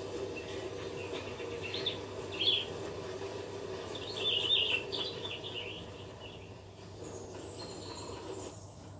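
Bird chirps from a nature demo soundtrack, heard through the TV and projector speakers. Short chirps come about 2 and 2.5 seconds in and a busier flurry around 4 to 5 seconds, over a steady low drone. The drone stops shortly before the end, leaving faint high insect-like trills.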